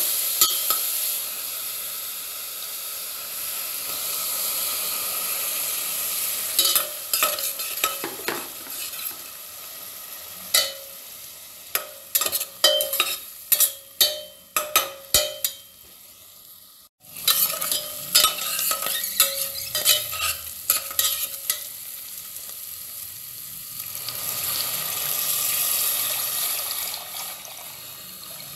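A metal ladle stirring spinach and sweetcorn as they sizzle in a pressure-cooker pot: a steady sizzle, with a run of sharp clinks and scrapes of the ladle against the pot through the middle. The sound cuts out for a moment just past the middle.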